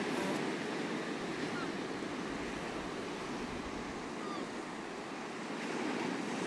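Steady ocean surf washing on a rocky shore, an even rushing noise with no breaks.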